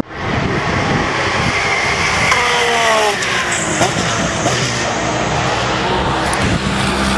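GT race cars passing at speed, engines at full throttle. About two to three seconds in, one car's engine note drops in pitch as it goes by. Another car sweeps past near the end with the same falling note.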